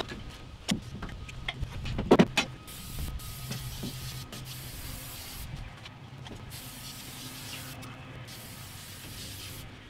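A few sharp knocks and clatters of tools and parts being handled in an empty van's metal cargo area, the loudest cluster about two seconds in, over a steady low hum.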